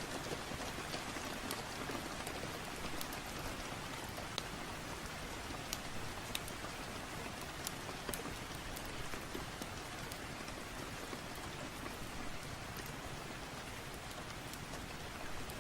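Steady rain falling, an even hiss with many scattered sharp ticks of individual drops.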